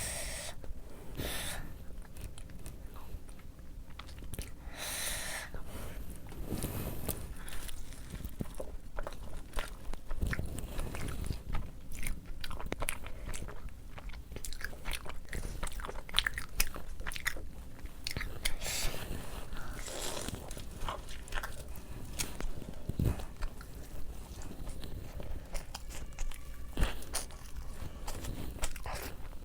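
A person eating rice and fish: chewing and biting with crunching, and many small clicks throughout.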